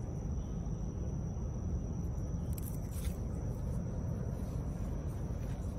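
Steady low rumble of outdoor background noise with a faint high steady tone above it, and a couple of faint brief rustles about halfway through.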